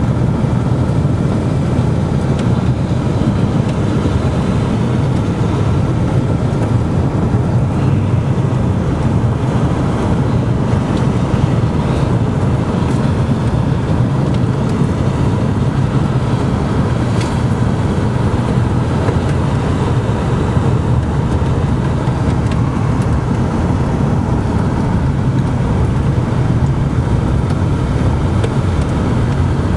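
Steady road and engine noise heard inside a moving car's cabin, heaviest in the low end.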